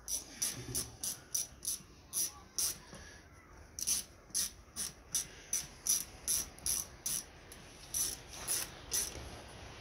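Ratchet wrench clicking in a steady run of about three clicks a second, with a couple of brief pauses, as a bolt on the engine's cam cover is turned.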